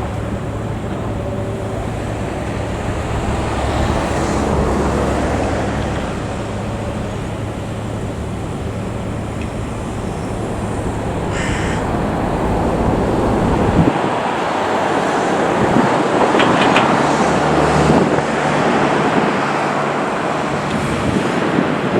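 Hydraulic excavator's diesel engine running with machine noise, a steady low rumble that drops away about two-thirds of the way through while the higher mechanical noise carries on.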